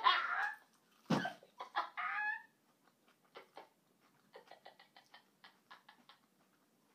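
Dog making a whiny begging noise for food: short wavering vocal sounds in the first few seconds, with a thud about a second in. Faint quick ticks follow.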